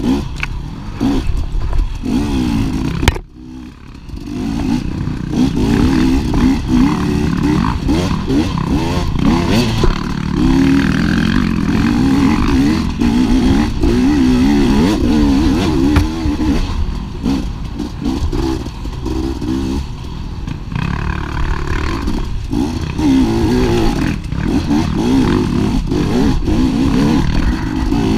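250cc dirt bike engine racing off-road, the revs rising and falling constantly as the throttle is worked. About three seconds in there is a sharp knock, then the engine drops off for a moment before picking up again.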